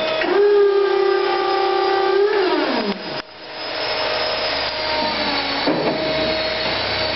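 Forklift hydraulic lift motor whining as it raises the forks under load. The pitch rises as it starts and sinks as it stops about three seconds in, and a steady machine hum follows.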